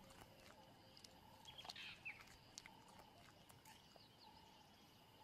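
Near silence: faint outdoor bush ambience with a few soft, short, high chirps from birds about two seconds in.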